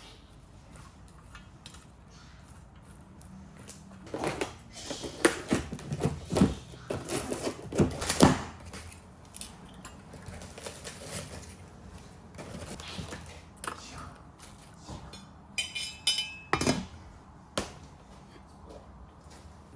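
Kitchen clatter of pots, dishes and utensils being handled and set down: irregular knocks and clicks in two busy spells, with a short ringing clink near the end.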